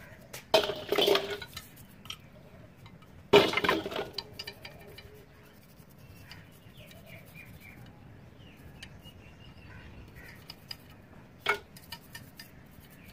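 Metal drill parts clattering against a stainless steel bowl: a cluster of clinks about half a second in, another at about three and a half seconds, and a single knock near the end, with faint toothbrush scrubbing on the parts in between.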